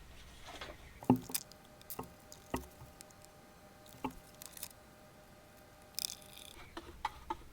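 Scattered sharp clicks and knocks of small objects being handled on a workbench while two-part epoxy is mixed up for coating a cracked plastic tank.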